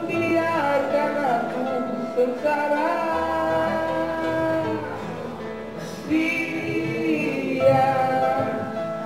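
A song: a voice singing long held notes over guitar.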